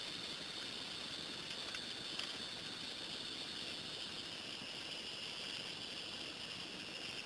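Steady background hiss with a faint click or two, no distinct mechanical sound.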